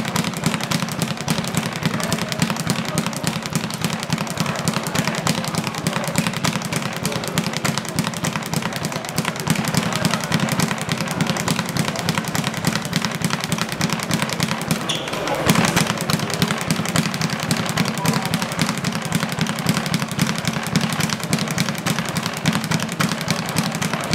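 Boxing speed bag being punched in a fast, unbroken rattle of rapid hits, with one louder knock about fifteen seconds in.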